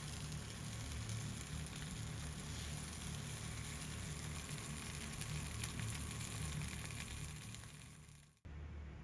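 Food sizzling in hot oil: a steady crackling sizzle that fades near the end and cuts off abruptly.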